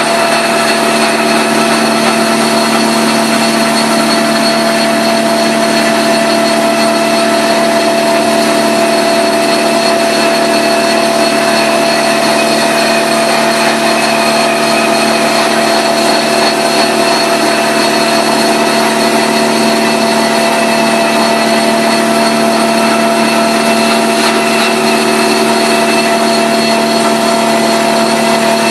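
Rotary carpet extractor running steadily as it works the carpet: its spinning cleaning head and the vacuum suction through the hose make one unbroken drone with a steady high whine.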